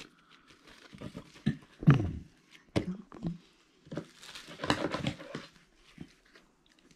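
Hands preparing pastry on a kitchen work surface: scattered soft taps and a rustle, with a few short murmured voice sounds.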